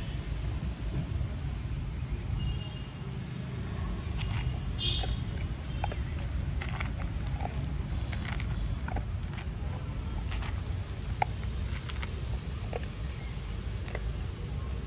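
Dog eating dry kibble from a plastic bowl, with scattered sharp crunches from about four seconds in, over a steady low rumble.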